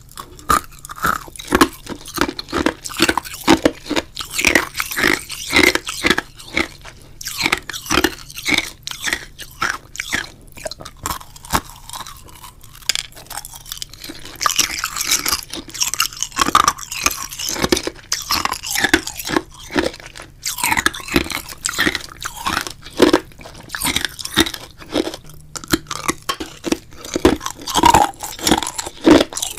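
Phone keyboard typing sounds: a dense, irregular run of short crunchy clicks and taps, several a second, as messages are typed out.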